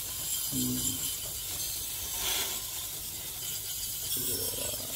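Cheap hand pump sprayer spraying a jet of water into the fins of an air conditioner's indoor unit, a steady hiss: the first water rinse of a dirty, mouldy evaporator.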